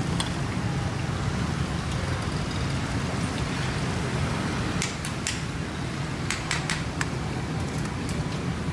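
Steady rumble of street traffic, with a run of several sharp clicks from about five to seven seconds in.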